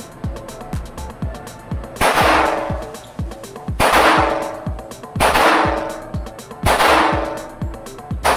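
Four gunshots, roughly one and a half to two seconds apart, each followed by a long echoing decay, with a fifth shot right at the end. A steady beat of background music runs underneath.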